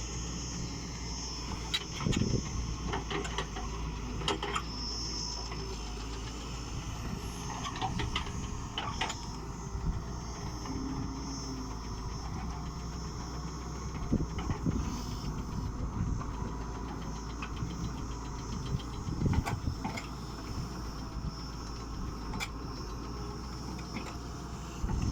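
The diesel engine of a 2007 Doosan DX140W wheeled excavator running steadily, with a steady high whine and occasional short clicks and knocks.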